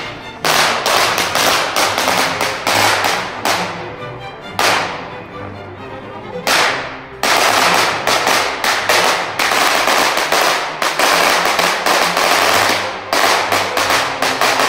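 A large batch of firecrackers on the ground going off in a long, rapid, irregular string of sharp bangs, with two brief lulls about four and seven seconds in.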